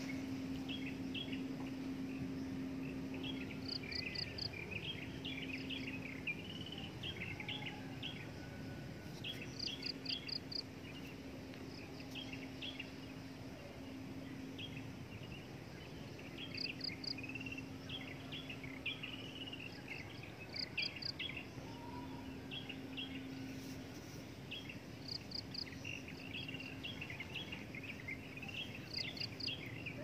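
Varied bird chirps and twitters from several birds in the trees. A quick set of four high ticks recurs every few seconds, and a steady low hum comes and goes underneath.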